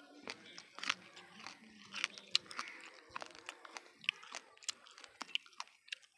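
Irregular sharp crunches and clicks, several a second, close to the microphone.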